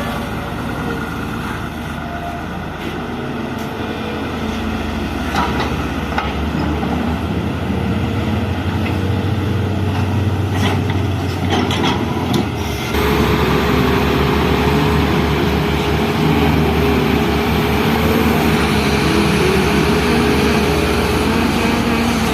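Excavator diesel engine running, with a few knocks in the first half. About halfway the sound changes abruptly, and a steady whine then runs over the engine.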